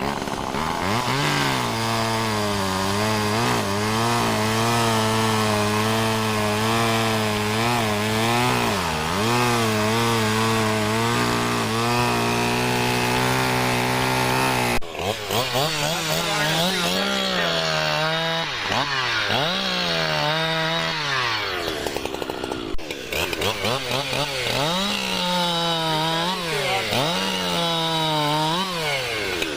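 Vintage two-stroke chainsaws running hard. For about the first half one saw holds a high, steady pitch with brief dips. About halfway the sound cuts over to a higher-pitched saw that is revved up and dropped back again and again.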